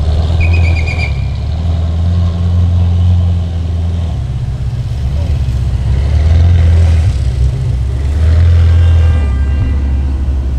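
Ferrari engines idling at close range as the cars creep and maneuver: a deep steady rumble that swells twice, about six seconds in and again near eight and a half seconds.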